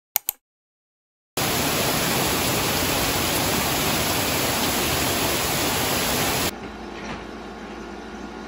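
Heavy rain falling on leafy trees, a dense even hiss that starts abruptly about a second in after two quick clicks. Near the end the rain cuts off to a much quieter steady background.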